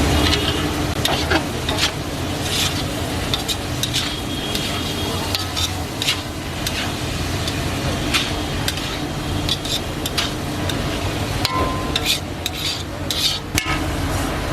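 Fried rice being stir-fried in a wok: a metal spatula scrapes and clinks against the pan again and again over a steady sizzle.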